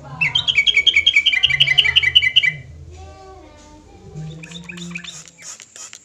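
Caged yellow-vented bulbul singing a rapid, chattering run of notes, about ten a second, for about two and a half seconds. Fainter calls and scratchy clicks follow.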